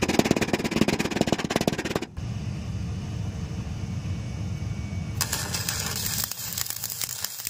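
Stick-welding arc on mild-steel checker plate, crackling and sizzling for about two seconds. It breaks off, leaving a steady low hum, and strikes up and crackles again a little past five seconds in.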